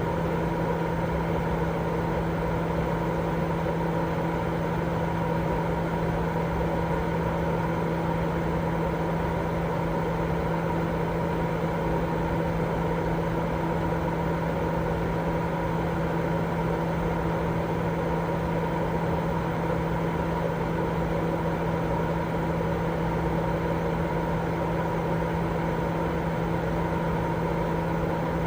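Continuous baby-sleep white noise: an even, unchanging hiss carrying a steady low hum and a fainter higher tone.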